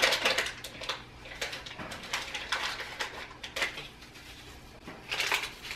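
Handling noises at a metal mixing bowl: several short bursts of rustling and scraping as dry ingredients and utensils are worked over the bowl. The loudest bursts come right at the start and again about five seconds in.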